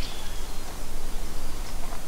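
Woodland ambience: a steady hiss with a low rumble underneath. The last faint note of a songbird's song trails off at the very start, and a faint short bird call comes near the end.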